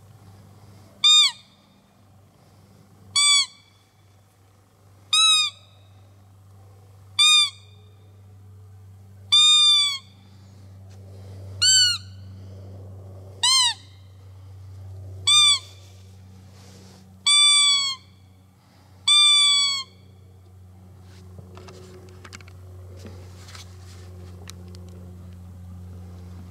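Roe deer lure call blown in short, high, falling squeaks, ten of them about two seconds apart, imitating a doe's fiep to draw in a roebuck, over a low steady hum.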